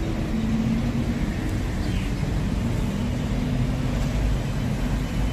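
Street traffic: cars, pickup trucks and motorbikes driving past, a steady low rumble with engine hum.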